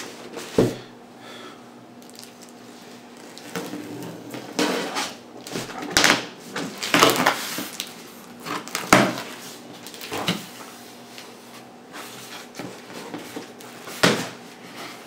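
Cardboard box being opened by hand: a knife slitting the tape seam, then the cardboard flap scraped and folded back, in irregular scrapes and knocks.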